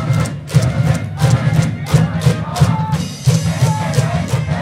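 School brass band in the stands playing a baseball cheering song, with drum beats about three a second under the horns' melody.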